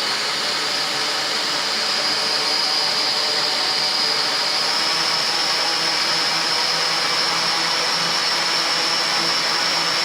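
Litehawk Quattro toy quadcopter's geared motors and rotors running at low throttle: a steady high whine over rotor hiss, rising slightly in pitch. Its pinion gears have been readjusted, and only a little gear noise remains, which the owner calls as quiet as it will get.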